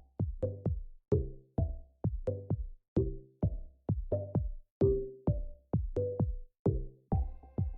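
Electronic intro music with a steady drum-machine beat and short pitched bass notes.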